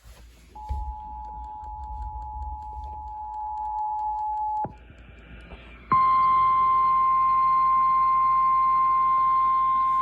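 Emergency Alert System tones. The two-tone EAS attention signal sounds steadily for about four seconds and cuts off sharply. After a second of hiss, a louder, steady single-tone NOAA Weather Radio alert tone starts about six seconds in and holds, announcing the next warning.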